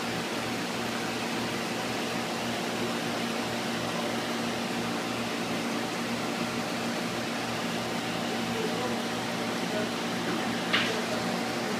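Steady hum and hiss of aquarium pumps and filtration running, with a constant low electrical hum. One short click near the end.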